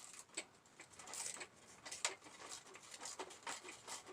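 Scattered light clicks and scrapes of a wrench working on a tight rear-fender bolt, trying to break it loose. They come at irregular intervals, a few a second.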